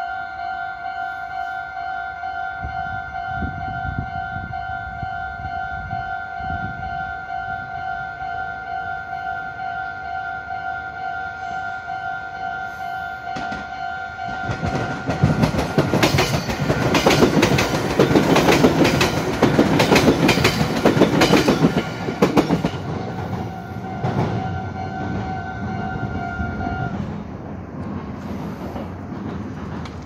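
Level-crossing warning bell ringing as a steady two-tone alarm while a red Meitetsu electric train passes from about halfway through, its wheels clattering over the rail joints, loudest for several seconds and then fading. The bell stops near the end.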